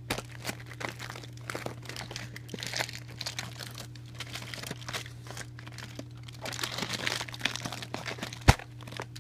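Aluminium foil crinkling and crackling irregularly as it is pressed and rubbed down by hand over a toy car body, with a single sharp click near the end, over a steady low hum.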